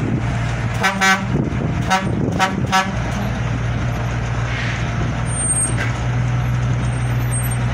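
Lifting crane's engine running with a steady low drone while it holds a wooden fishing boat in slings. Three short horn toots sound in the first three seconds.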